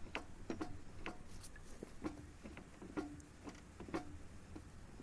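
Faint clacking knocks from a front-wheel-drive car's differential inside the gearbox, about two a second, as the raised wheel is turned by hand. They are the sign of excess play in a worn differential.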